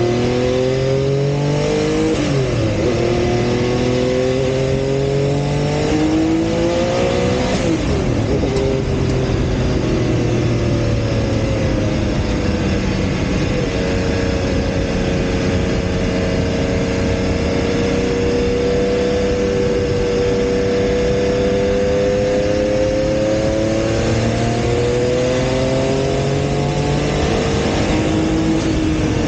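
Porsche 956 Group C race car's twin-turbocharged flat-six heard from inside the cockpit at racing speed. The engine note climbs under acceleration and drops sharply at gear changes about 2 and 7 seconds in, holds fairly steady through the middle, and climbs again near the end, over constant wind and road noise.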